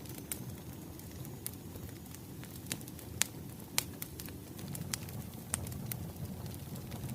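Burning firewood crackling: irregular sharp pops and snaps over a steady low rumble of the fire.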